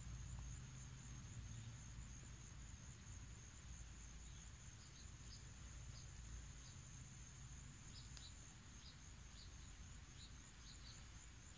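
Faint steady high-pitched insect trill, with scattered short faint chirps from about five seconds in.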